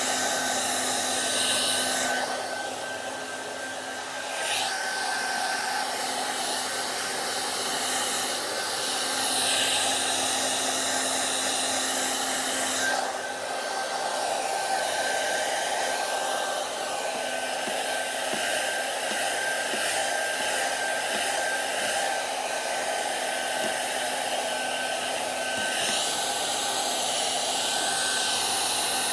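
Hand-held hair dryer blowing steadily, a steady whine over the rush of air, its sound dipping briefly a couple of times.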